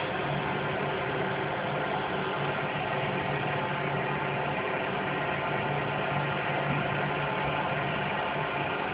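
A steady low drone of unknown origin, made of several fixed low tones over a faint hiss, without a break. It is the kind of sound that resembles a distant engine idling.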